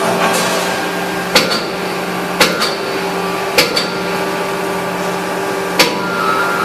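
Steady hum of an 800-ton stamping press and its die-change equipment, with four sharp metallic clanks that each ring briefly: one about a second and a half in, two more about a second apart, and one near the end.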